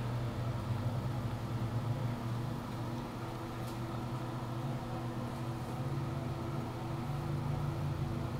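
Steady low machine hum, even throughout.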